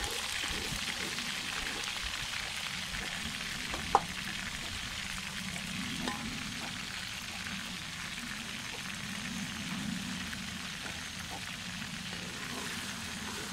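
Small pieces of eel coated in pounded garlic and galangal sizzling steadily as they deep-fry in hot oil in a wok. A metal spatula stirs them, with one sharp knock against the wok about four seconds in.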